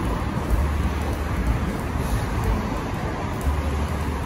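Street traffic on a busy city avenue: a steady wash of road noise with a low engine rumble from passing vehicles that swells a few times.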